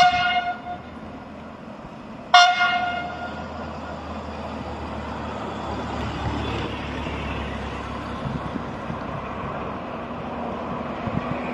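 Train horn sounding two short blasts about two and a half seconds apart, followed by the steady low rumble of the approaching train.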